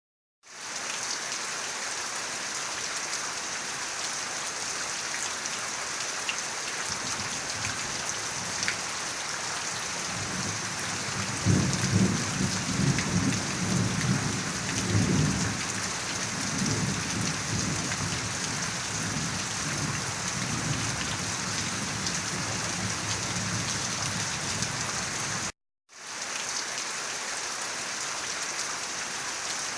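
Steady rain with thunder rumbling low through the middle, swelling loudest around the 11 to 16 second mark. The sound fades in at the start, cuts out briefly about 25 seconds in, then fades back in.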